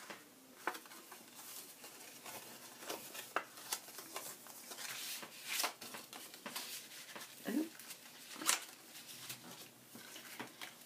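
Printed paper pieces rustling and tapping as they are taken out of a small paper envelope and laid down, with irregular soft clicks and crinkles.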